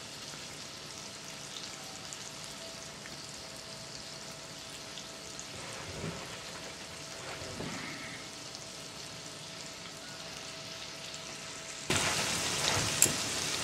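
Beef burger patties frying in cast-iron skillets: a faint steady sizzle, with a couple of soft knocks in the middle, that jumps to a louder, crackling sizzle with sharp pops about twelve seconds in.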